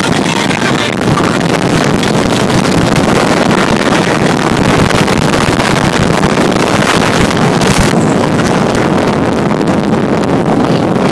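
Motorboat running at speed across open water, with heavy wind buffeting the microphone, steady throughout. One brief bump about three-quarters of the way through.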